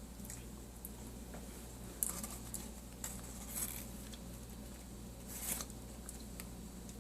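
Crisp crunches of cornstarch chunks, with the loudest crackles about two, three and a half and five and a half seconds in.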